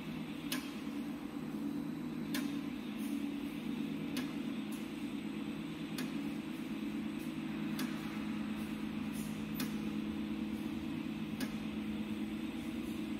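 Double-column flipping welding positioner's electric drive running as it slowly rotates a clamped beam: a steady low hum with sharp ticks every second or two.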